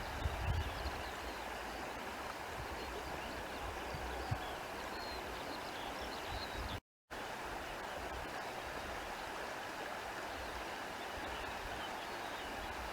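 Steady rushing of running water from a stream, with faint high chirps over it. The sound cuts out completely for a split second about halfway through.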